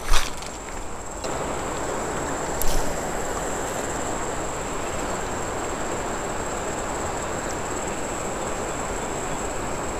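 Fast-flowing river water rushing steadily, setting in about a second in, under a constant high insect trill. A sharp click at the very start and another near three seconds.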